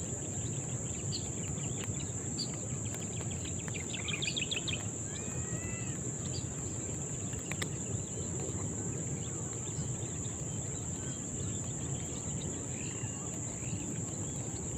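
Steady high-pitched drone of insects such as crickets, with birds chirping now and then, including a short trill about four seconds in, over a low background rumble.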